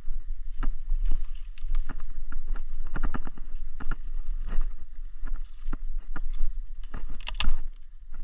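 Small campfire of dry brush and twigs catching and crackling: irregular pops and snaps throughout, with a louder flurry of snaps about seven seconds in, over a low steady rumble.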